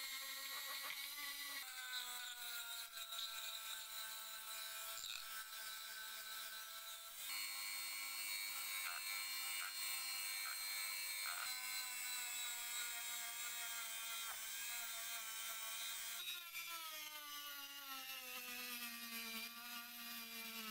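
Handheld electric rotary tool running at high speed with a steady whine, wire-brushing and then sanding the metal parts of an old glazing point driver. The pitch jumps a few times, and near the end it wavers as the sanding drum is pressed against the cast frame and the load changes.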